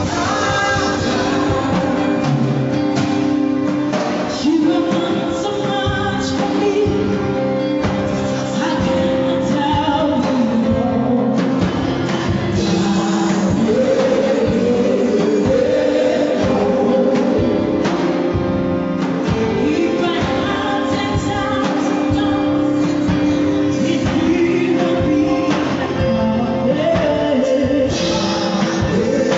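Upbeat gospel song: singing over band instruments with a steady drum beat.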